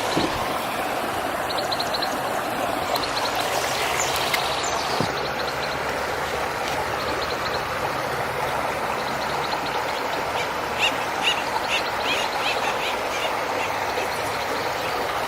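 Steady rush of running water from a stream, with a bird calling in short, quick high notes, most clearly in a run about ten seconds in.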